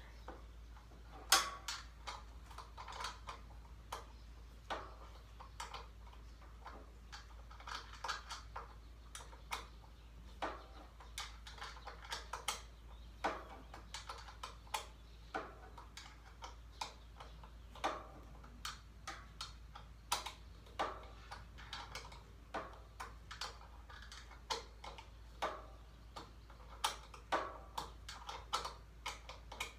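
Irregular sharp metal clicks and ticks, one to three a second with a few quick clusters, from a hand wrench working a stubborn mower bolt loose in a cramped spot, over a faint steady low hum.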